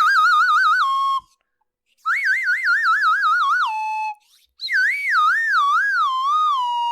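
Three warbling whistle calls, each wavering rapidly in pitch as it slides down, then ending on a short held lower note. The waver is slower in the last call.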